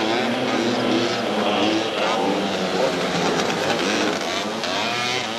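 A pack of Honda Odyssey and Pilot off-road buggies racing bunched together through a dirt corner. Their engines rev at once, many pitches overlapping, rising and falling.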